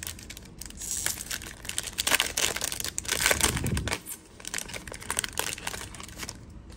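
Foil trading-card pack wrapper being torn open and crinkled in the hands, a dense crackling that is busiest in the middle and dies away near the end.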